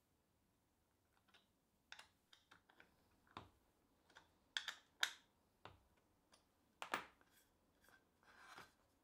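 Scattered small clicks and scrapes of a hex key turning a metal threaded insert into a plywood board, with the board handled on a cutting mat; the loudest clicks come about halfway through and again a couple of seconds later, and a short soft rustle near the end.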